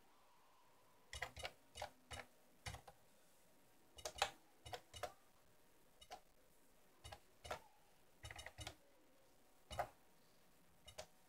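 Keys on an old home computer's keyboard clicking as commands are typed, in irregular clusters of quick presses with short pauses between words.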